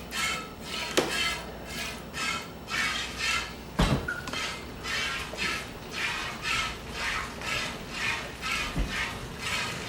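Goat being milked by hand: alternating squirts of milk hissing into a pail, about two a second, with a few knocks against the pail, the loudest about four seconds in.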